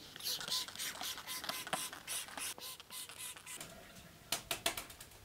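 Trigger spray bottle of bike cleaner squeezed rapidly, about four squeezes a second, each giving a short hiss of spray, then a few more squeezes near the end. The spray is wetting the bike frame so the dirt can soak.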